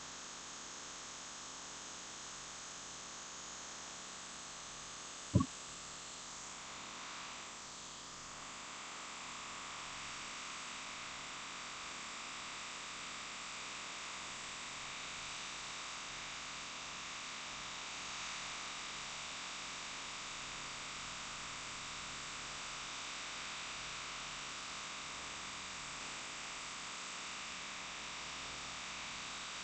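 Steady hiss of a hot air rework station's airflow while a smartphone CPU is heated for removal from the motherboard. There is one short click about five seconds in, and the hiss rises slightly about eight seconds in.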